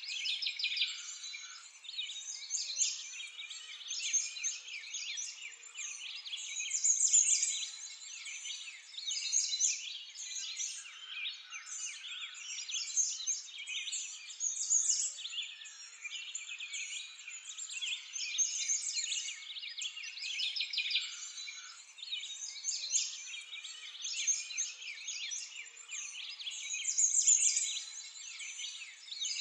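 A dense chorus of many small birds chirping and twittering at once, high-pitched with nothing low beneath it, swelling and easing every few seconds.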